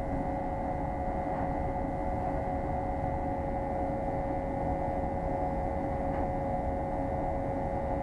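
Steady mechanical drone of running equipment: a low rumble under a constant mid-pitched hum and a faint, high steady tone.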